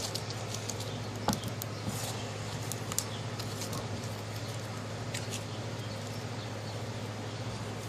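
Slime being stretched and flattened by hand: scattered small sticky clicks and ticks, a couple of sharper ones about a second and three seconds in, over a steady low hum.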